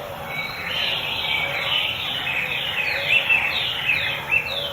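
A songbird singing: a run of repeated, downslurred whistled notes, a few of them sharper and louder toward the end.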